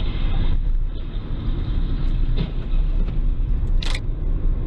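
Car driving at highway speed, heard from inside the cabin: a steady deep rumble of road and engine noise, with a short sharp hiss about four seconds in.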